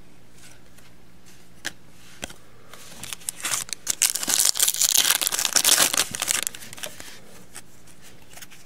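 Foil wrapper of a 2016 Panini Certified football card pack crinkling and tearing as it is ripped open by hand. A dense burst of crinkling lasts about three seconds, after a couple of faint clicks.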